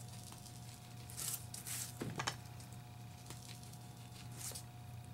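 Foam ink blending tool brushing distress ink onto the edges of a paper card: a few short, soft swishes a second or two in and one more near the end, over a faint steady hum.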